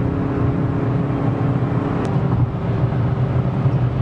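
Steady engine and tyre noise inside a car's cabin at motorway speed: a constant low drone over road hiss. There is a single brief click about two seconds in.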